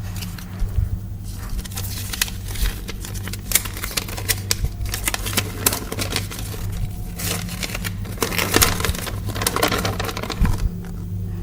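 Small plastic Lego pieces and packaging being handled: irregular sharp clicks and taps, several a second, over a steady low electrical hum.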